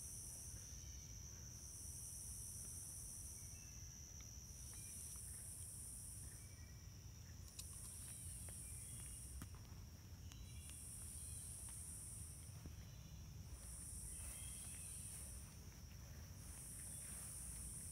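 Faint insect chorus: a very high buzzing call that swells and fades about every three seconds over a steady high-pitched trill, with a few faint bird chirps scattered through it.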